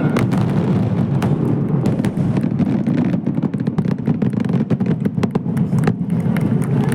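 Fireworks going off: a continuous low rumble with many sharp crackles scattered through it.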